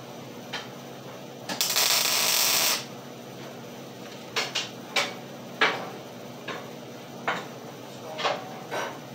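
A short weld on steel: about a second of steady crackling arc hiss that starts and stops abruptly. It is followed by several sharp knocks and clinks as the steel pieces are handled on the table.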